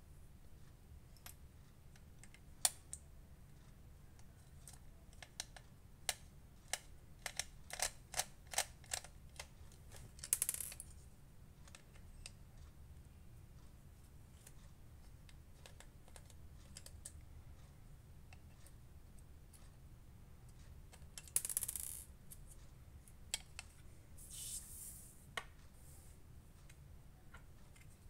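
Small metal clicks and taps of a precision screwdriver working the screws out of an out-the-front knife's handle. There is a dense run of clicks in the first ten seconds, then scattered clicks and a few short scraping rasps.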